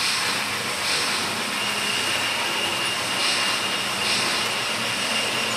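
Model railway train, a steam locomotive with passenger coaches, rolling along the track: a steady rushing hum of wheels on rails, with a thin high tone coming in about one and a half seconds in.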